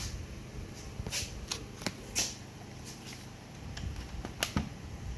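Light clicks and taps of handling on the workbench, about five scattered over a few seconds, with the sharpest one near the end.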